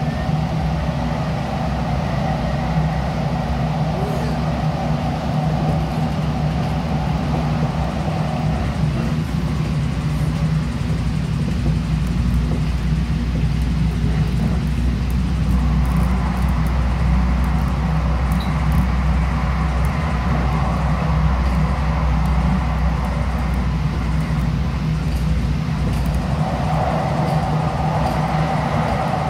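Steady ride noise inside a moving DART light rail car: a low hum with wheel-on-rail rumble. A mid-pitched tone fades out about nine seconds in, the low rumble grows heavier through the middle, and the tone returns near the end.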